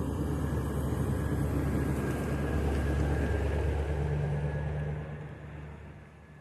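Motor vehicle engine running with a steady low hum, fading away about five seconds in.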